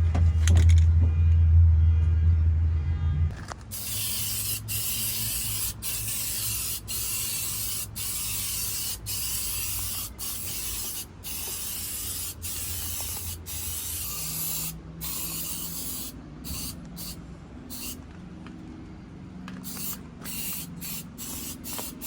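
Aerosol can of etch primer spraying onto a car's steel cab floor in a long run of hissing passes, each broken by a short pause, the passes getting shorter and more frequent about halfway through. It opens with a loud low drone that stops about three seconds in.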